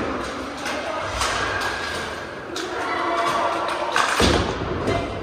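Inline hockey play: sticks, puck and skates knocking and clattering on the plastic tile floor and boards, echoing in a large hall, with a heavy thump about four seconds in.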